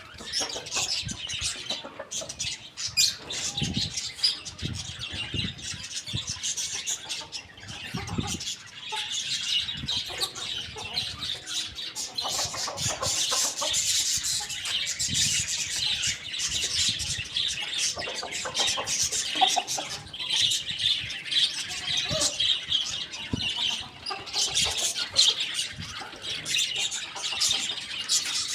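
Poultry feeding: a dense, continuous chatter of high chirps and clucks, with frequent short knocks and wing flutters.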